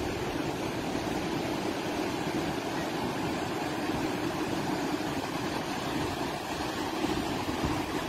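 Fast-flowing mountain river rushing over rocks: a steady, unbroken noise of white water.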